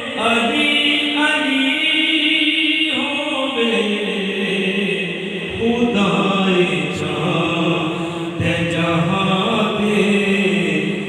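Devotional vocal music: a chant-like melody sung in long held notes that step from pitch to pitch.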